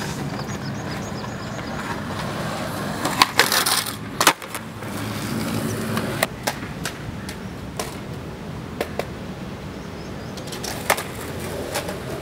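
Skateboard wheels rolling on rough concrete, with sharp wooden clacks of the board popping and landing, the loudest a few seconds in and more scattered later.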